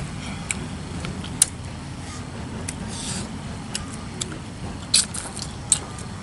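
Mouth sounds of eating: chewing and biting, with scattered sharp clicks and smacks, over a steady low background hum.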